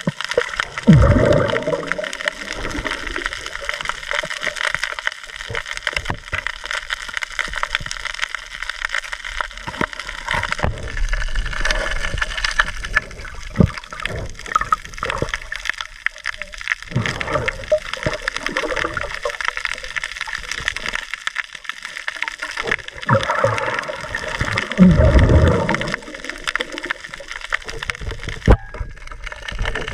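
Underwater sound on a night dive: a constant fine crackle of clicks, with surges of rushing, gurgling water that are loudest about a second in and again a few seconds before the end.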